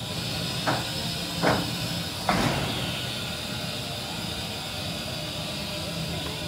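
Steam hissing steadily from a GWR Saint class 4-6-0 steam locomotive, with three short knocks in the first two and a half seconds.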